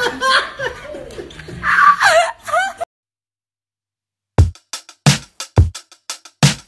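Voice sounds rising and falling in pitch for the first three seconds, then a short gap of silence, then background music with a heavy beat.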